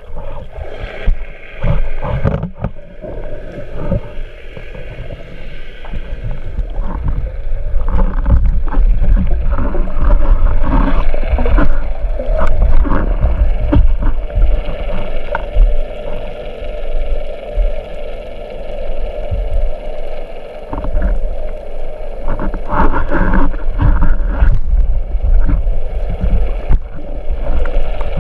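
Underwater sound picked up by a camera in a waterproof housing on a speargun: a muffled rush of water and bubbling with a low rumble, broken by many knocks and clicks as the gun and the speared grouper move. It grows louder about eight seconds in.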